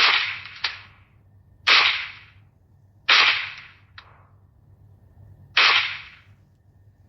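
Pistol fired four times at uneven intervals, each shot a sharp crack with a short dying tail. A fainter sharp click follows shortly after the first and third shots.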